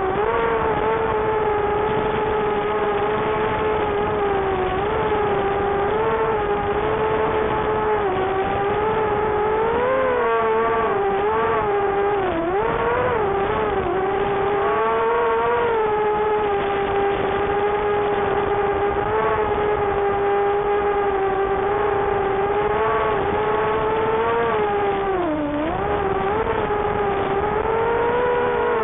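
Brushless motors and 4-inch propellers of a small racing quadcopter whining in flight, heard through the onboard camera's microphone. The pitch holds mostly steady, wavers with throttle changes and dips sharply twice, about midway and near the end.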